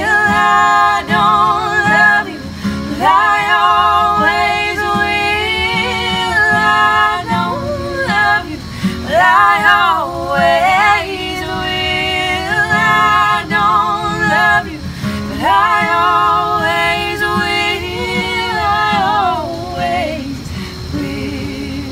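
A voice singing long, wavering notes with vibrato in several drawn-out phrases, without clear words, over an acoustic guitar.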